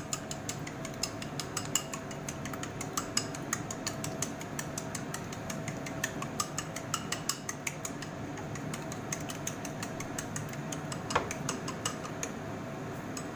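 Eggs being beaten with wooden chopsticks in a small porcelain bowl: rapid clicking of the chopsticks against the bowl, several taps a second, kept up without a break.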